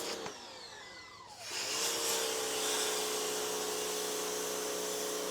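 Pressure washer: after a click the motor's pitch falls away, then about a second and a half in it starts up again with a steady hum and the loud hiss of the water jet spraying.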